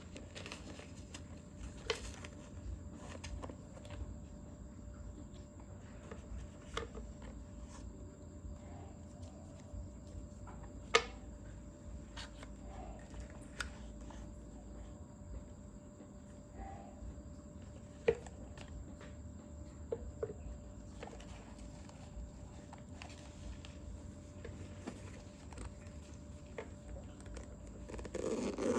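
Scattered light clicks and taps from handling packaging and small hard parts, the clearest about eleven and eighteen seconds in, over a steady low hum. A louder rustle of handling comes at the very end.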